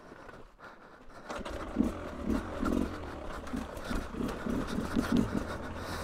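Beta RR 300 single-cylinder two-stroke engine running at low revs, with an uneven pulsing over a steady low rumble; it comes in about a second in, after a quieter start.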